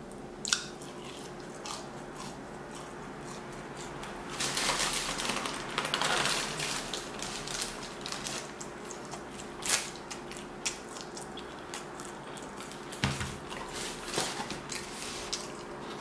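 A mouthful of fried chicken nugget and french fry being chewed, with crunches and sharp mouth clicks. The chewing is loudest a few seconds in.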